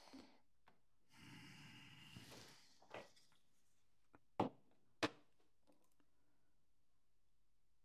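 Handling of the Agfa Isolette III's disassembled metal rangefinder assembly on a wooden board: a soft rustle, a light knock, then two sharp clicks about half a second apart, the loudest sounds, around four and a half seconds in.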